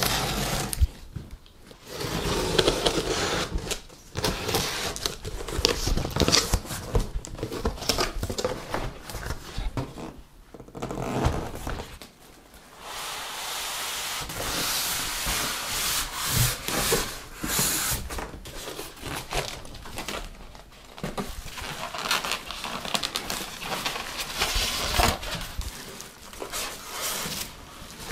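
Unboxing a PC tower case: cardboard box flaps and polystyrene end caps scraping and rubbing as the case is slid out, with the clear plastic bag around it crinkling and a few knocks between bursts of rustling.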